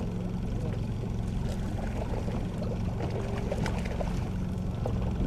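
Fishing boat's outboard motor running steadily with a low hum, with water noise along the hull and a few light clicks from handling gear.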